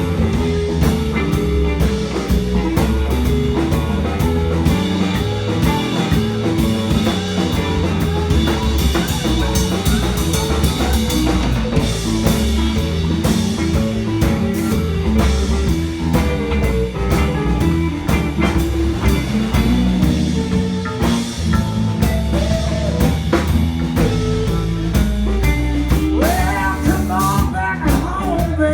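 Live blues band playing an instrumental stretch: guitar over bass and drum kit.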